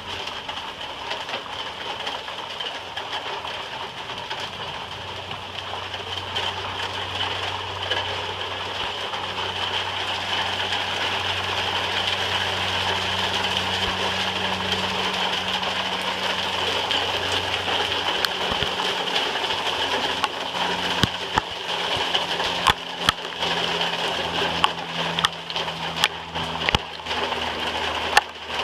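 Rain falling steadily in a thunderstorm, with sharp individual drop taps growing frequent from about twenty seconds in.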